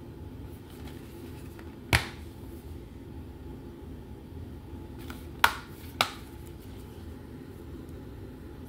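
Plastic DVD keep case clicking open, then snapping shut with two sharp clicks about half a second apart, over a steady low hum.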